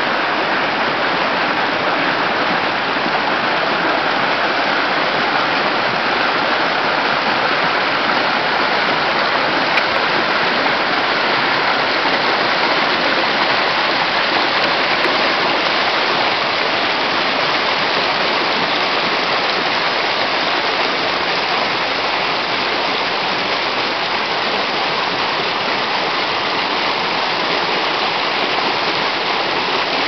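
Mountain stream rushing and splashing over rocks in a small cascade: a steady, loud wash of running water.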